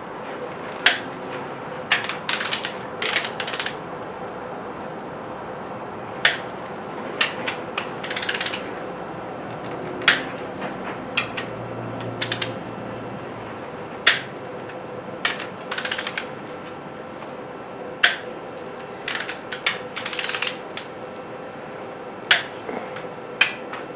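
Ratchet and torque wrench working the cylinder head bolts of a small-block Chevy 350 down to 45 ft-lbs, the first step of the torque sequence: short runs of quick ratchet clicks with single sharp clicks between them, every second or two. A faint steady hum sits underneath.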